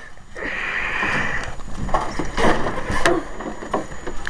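Rustling and handling noise, with a few sharp knocks and clicks scattered through it; the loudest knock comes about three seconds in.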